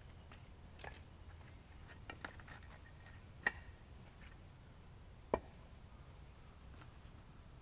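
A few light, scattered knocks and clicks over a faint low background, the two sharpest about three and a half and five and a half seconds in.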